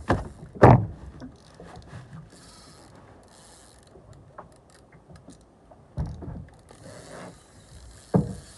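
Fishing reel ratcheting and buzzing in short runs as a big fish is fought on the line, with several heavy thumps, the loudest about a second in and others around six seconds and near the end.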